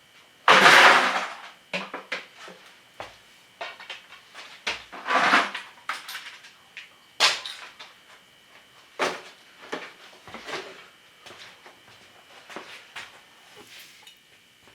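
Rummaging through the broken pieces of a smashed computer: irregular rustles, scrapes and clicks of plastic and metal parts being moved about, the loudest a long scrape about half a second in and another about five seconds in.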